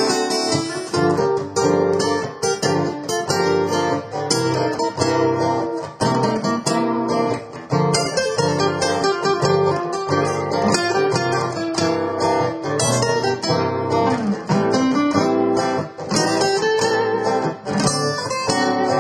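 Acoustic guitar music, with notes plucked and strummed in a steady flow.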